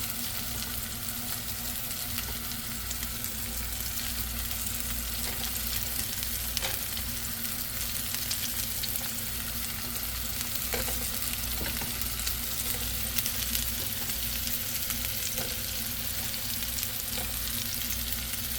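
Meatballs frying in hot oil in a pan: a steady sizzle with a few faint pops scattered through it, over a low steady hum.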